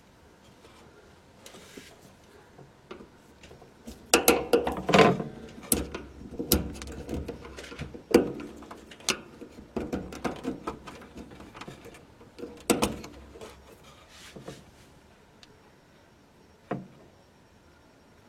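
Irregular knocks, clicks and rustling of objects being handled, loudest about four to five seconds in and again near thirteen seconds, with one last knock near the end.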